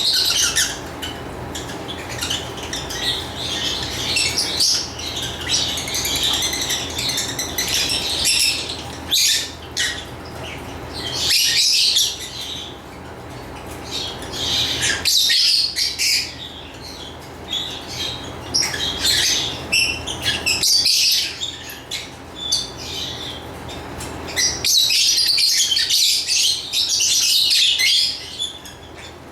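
Lovebirds chirping and chattering in quick high-pitched calls, with louder flurries swelling and fading every few seconds.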